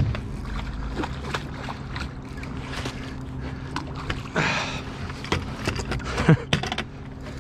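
A hooked carp thrashing and splashing at the surface about four seconds in, with scattered knocks as a landing net is worked in the water beside a wooden dock. A steady low hum runs underneath.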